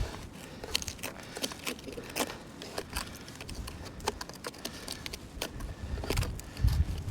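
Irregular crisp clicks and crackles of crusted snow, ice and sleet being crunched.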